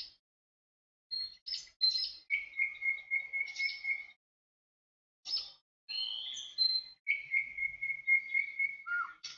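Songbirds chirping and singing in short phrases, including two long trills of quick, evenly repeated notes held on one pitch and a few brief whistles that glide.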